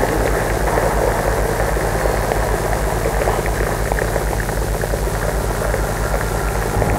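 Live electronic noise music from a mixing desk: a dense, steady drone with a deep, rapidly stuttering hum underneath and crackling noise above.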